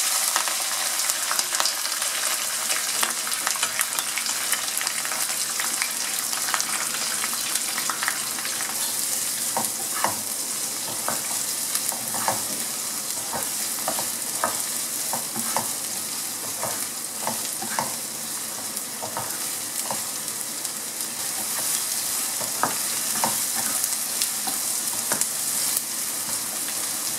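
Chopped onions sizzling in hot oil in a nonstick wok, the hiss brightest as they are tipped in at the start. From about a third of the way in, a spatula stirs them in a run of short scraping strokes.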